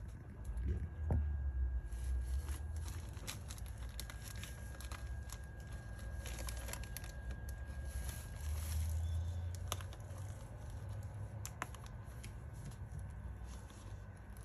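Clear plastic film crinkling and crackling in irregular bursts as a kitten shifts and paws at it. A low rumble swells underneath twice, near the start and again past the middle.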